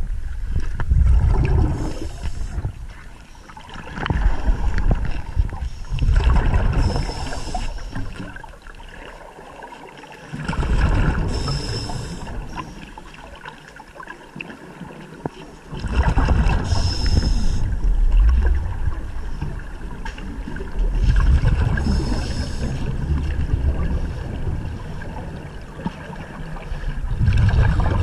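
Scuba diver breathing through a regulator underwater. About every five seconds there is a loud rush of exhaled bubbles with a short hiss, and quieter gaps between breaths. It is heard through the camera's underwater housing.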